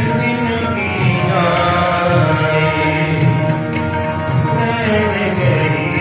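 Instrumental interlude in Sikh kirtan: harmonium playing a sustained melody over tabla.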